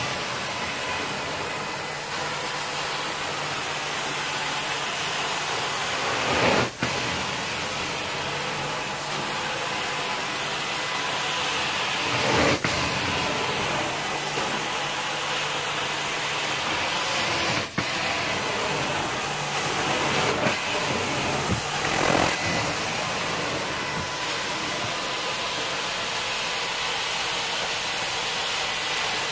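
Carpet-cleaning extraction wand working the carpet: a steady, loud rushing hiss of suction and water spray. A few brief changes every several seconds break the even sound.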